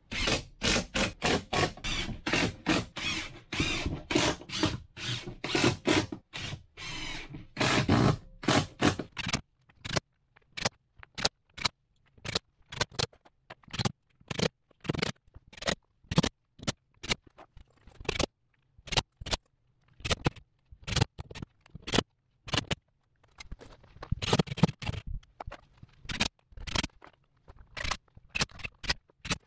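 A run of sharp knocks and clicks as a plywood wall sheet is fastened to the wall framing. They are dense and heavy for about the first nine seconds, then come singly and irregularly, about one or two a second.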